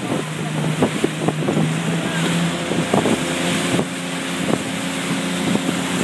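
Outboard motor running steadily at cruising speed, with wind buffeting the microphone and the wake rushing behind the boat. Frequent short thumps run through it.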